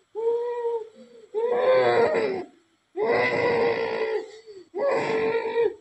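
A woman wailing in long, high, drawn-out cries, four in a row with short breaks between them.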